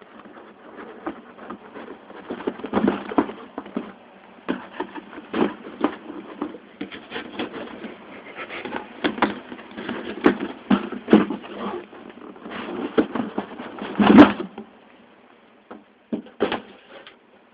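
Large cardboard model-kit box being opened and its contents handled: irregular scrapes, knocks and rustles of cardboard and plastic-bagged kit runners, with the loudest knock about 14 seconds in.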